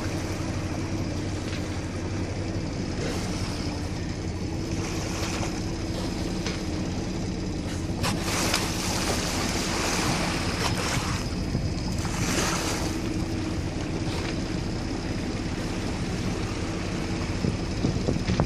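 A boat's engine running steadily with a low, even hum while the boat moves through the water. A rushing noise swells twice around the middle.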